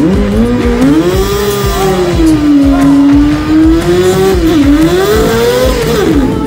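Motorcycle engine revving hard during a burnout, the rear tyre spinning on the pad. The revs climb, hold and drop back several times.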